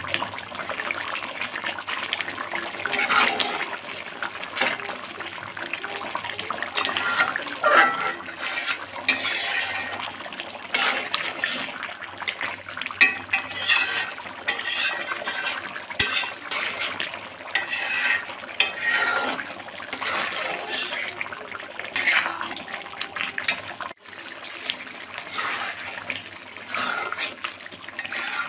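A spatula stirring thick, bubbling curry in an aluminium pot: wet sloshing strokes with the spatula scraping the pot, coming irregularly every second or so.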